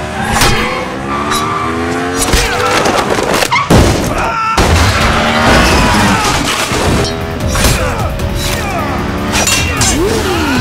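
Action-film sound mix over a music score: motorcycle engines revving, their pitch rising and falling, with a loud crash and impacts about three and a half seconds in as bikes go down.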